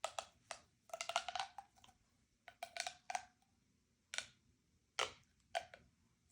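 Plastic fidget toys, most likely ribbed pop tubes being pulled and pushed, giving short irregular pops and clicks in small clusters, some with a brief ringing tone.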